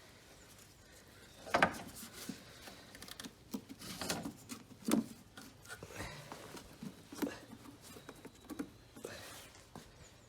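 A stiff plastic engine-bay panel being worked loose and lifted out by hand: irregular plastic clicks, knocks and rustling, the loudest knocks about one and a half and five seconds in.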